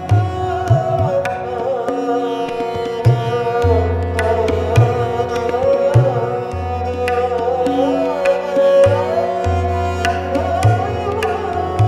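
Harmonium playing a sustained, moving melody with tabla accompaniment: deep ringing bass strokes from the bayan and sharp strokes from the dayan, with no singing.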